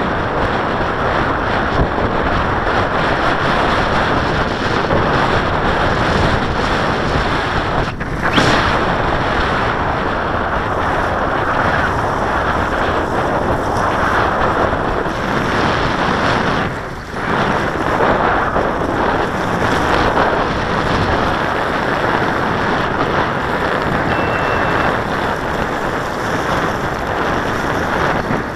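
Strong, gusty wind buffeting the camera's microphone: a continuous loud rushing noise with a brief lull a little past halfway.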